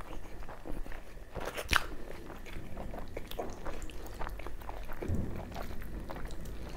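Eating sounds of mutton curry with puri eaten by hand: chewing, and many short sticky clicks as fingers tear puri and work it through the curry, the sharpest click just under two seconds in.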